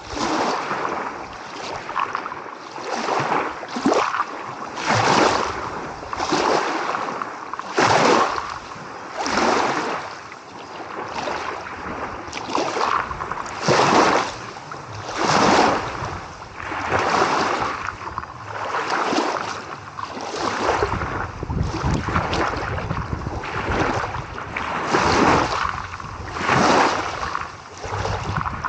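Small sea waves lapping and splashing against the shore in quick succession, about one splash every second or so. A low wind rumble on the microphone joins about two thirds of the way in.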